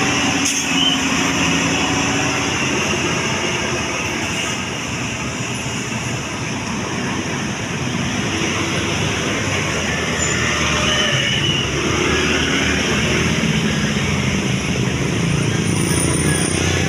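Heavy road vehicles, buses and trucks, driving past with engines running: a steady engine drone under road noise, easing off slightly midway.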